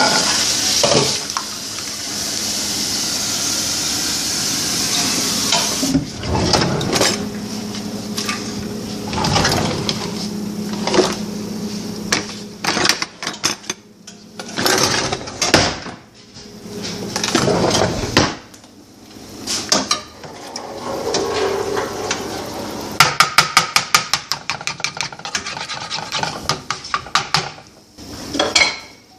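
Kitchen clatter: pans and metal utensils knocking and clinking, with rummaging through a utensil drawer. It opens with a steady hiss for several seconds, and a quick run of sharp clicks comes about two-thirds of the way through.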